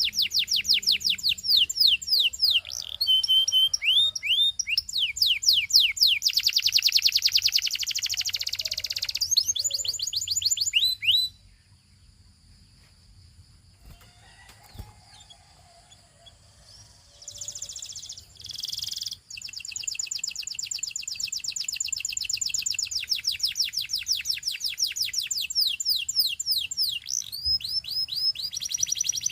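Gloster canary singing rapid rolling trills of quick, high, repeated chirps. The song stops for about six seconds midway, then resumes with long trills.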